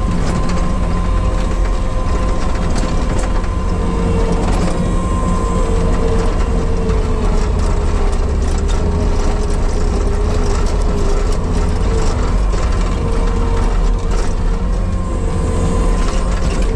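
Compact diesel earthmoving machine running under working load: a steady low engine drone with a whine that wavers a little in pitch, and scattered metal clanks and rattles.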